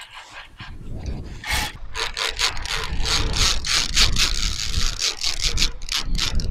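Rapid, repeated scraping and rubbing that grows louder about a second and a half in: metal harness lanyard clips dragging along the steel safety cable of a rope-net tunnel on a high ropes course.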